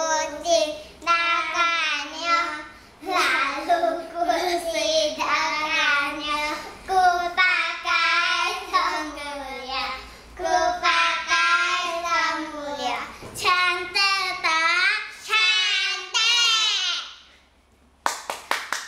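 Two young boys singing a kindergarten song together, in phrases broken by short breaths. Near the end the singing stops and, after a brief pause, quick even hand claps begin.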